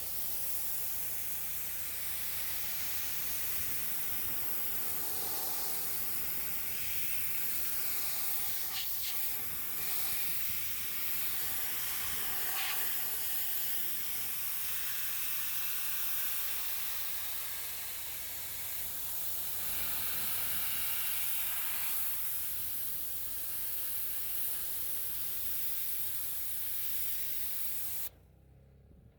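Pressure washer spray hissing steadily, cutting off abruptly near the end.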